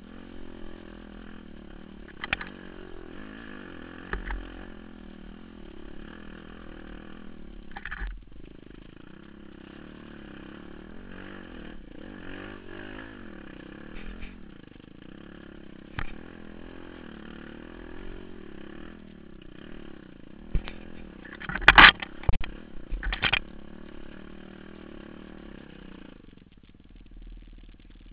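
Enduro motorcycle engine running as the bike is ridden along a rough forest trail, its note wavering with the throttle, with scattered knocks and a loud burst of clattering knocks about three quarters of the way through. Near the end the engine sound changes abruptly to a lower, steadier note.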